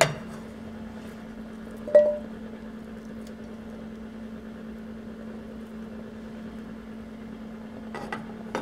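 Steady low hum with a faint hiss from the kitchen, and one sharp clink about two seconds in.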